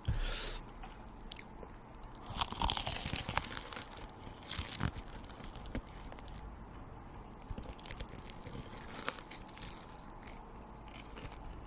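Crunchy food being bitten and chewed close to the microphone, loudest in a stretch of crunching a couple of seconds in, then quieter chewing clicks.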